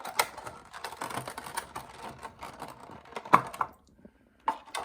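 A model airplane's cardboard box and its packaging being opened and handled by hand: a rapid run of small clicks and crinkles, with one sharper snap about three seconds in, then a few scattered clicks.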